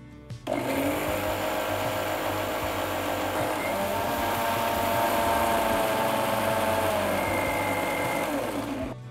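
Preethi Zodiac mixer grinder grinding roasted spices, grated coconut and water into a wet masala paste. The motor spins up with a rising whine about half a second in, runs steadily, then winds down and stops just before the end.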